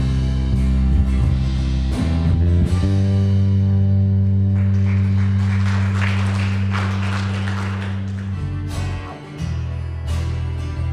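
Electric bass guitar playing along to a worship-band backing track, holding one long low note through the middle before moving on.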